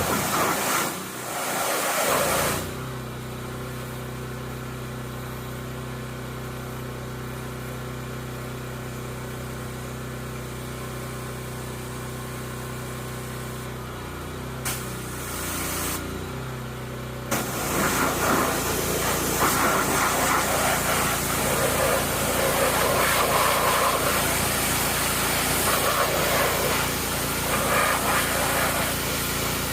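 Pressure washer running: a short blast of spray at the start, then the motor humming steadily with the gun off, and from a little past halfway a continuous loud hissing spray of water against the machine.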